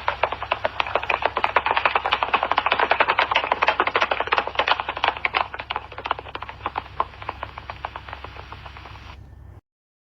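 Horse galloping: rapid hoofbeats that grow louder toward the middle, then fade and cut off abruptly near the end.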